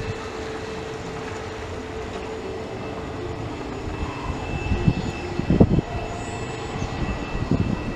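Airbus A321neo's Pratt & Whitney geared turbofan engines at taxi power: a steady whine over a rumble. Uneven low rumbles swell about five and a half seconds in and again near the end.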